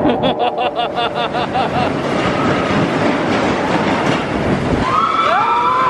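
Roller-coaster train running on its steel track, a fast even clatter of wheels at about seven clacks a second at first, settling into a steady rumble. High gliding squeals come in near the end.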